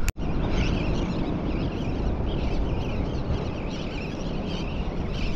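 Wind buffeting the microphone over water lapping against a kayak hull: a steady rumbling rush, after a brief drop-out at the very start.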